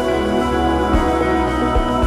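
Cinematic background music: sustained layered tones with a few soft low drum hits.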